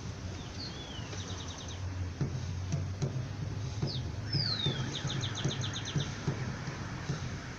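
Small birds calling twice: each phrase a quick falling whistle followed by a fast run of short clipped notes. Underneath, faint regular low thumps of distant batucada drums.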